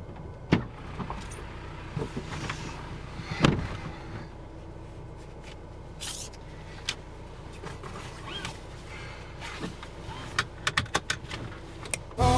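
Low steady hum of a car heard from inside the cabin, with scattered clicks and knocks and a quick run of small clicks near the end.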